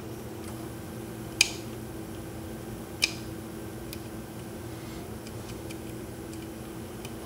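Metallic clicks of a lock pick working the spool pins of a Yale large-format interchangeable core under tension: two sharp clicks about a second and a half and three seconds in, then a few lighter ticks. A steady low hum runs beneath.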